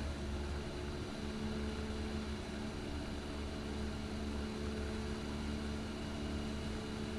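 Steady drone of a Cessna 172's piston engine and propeller in flight, heard in the cabin: an even, low hum with a few faint constant tones.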